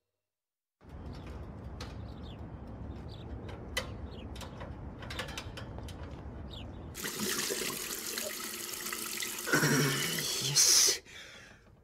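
Running water starts about a second in, with a low rumble and scattered small clicks. About seven seconds in it turns into louder, brighter splashing, with a short vocal sound near the end.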